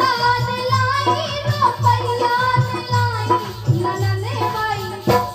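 Bundeli rai folk music: a long, wavering melodic line is held over a steady drum beat of about two strokes a second.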